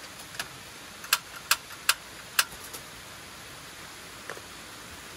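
Portable butane camping stove's piezo igniter clicking four times in quick succession, about half a second apart, as the knob is turned to light the burner. A steady low hiss runs underneath.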